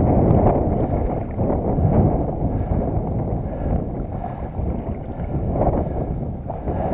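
Wading through knee-deep marsh water and reeds: water sloshing and swishing with each stride, with wind buffeting the microphone.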